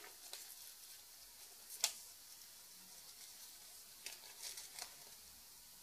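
Faint handling noises from fly-tying materials being picked up: one sharp click about two seconds in, then a few soft ticks and rustles about four to five seconds in, over quiet room tone.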